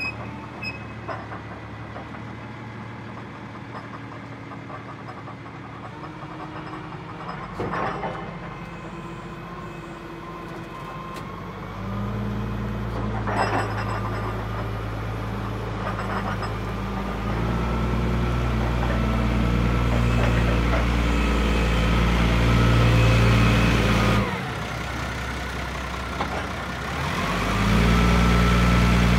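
Diesel engine of a Kalmar DCE 100-6 heavy forklift running as the machine drives and manoeuvres, the engine note getting louder and pulling harder about halfway through, with a few short clunks along the way.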